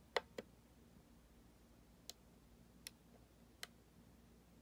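Clicks of the rotary value knob on a Mooer GE200 multi-effects unit being turned step by step: a louder double click just after the start, then three single clicks about a second apart.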